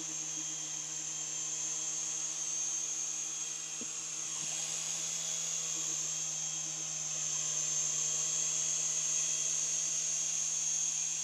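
Small remote-control toy helicopter flying, its electric motor and rotor giving a steady high-pitched whine over a low hum.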